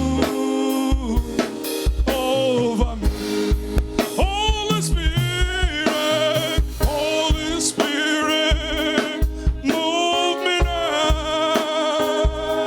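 Live gospel worship music: a singer's voice over a drum kit keeping a steady beat with kick drum and snare.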